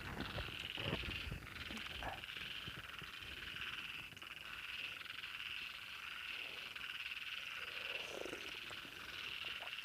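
Frogs calling in a steady, continuous night chorus, with a few soft knocks of handling in the first couple of seconds.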